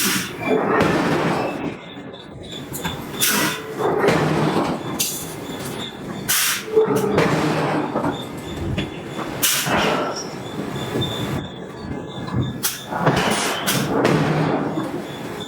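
Hydraulic forging hammer striking a steel billet: about eight sharp blows spaced irregularly, one to three seconds apart, with a hissing rush between them.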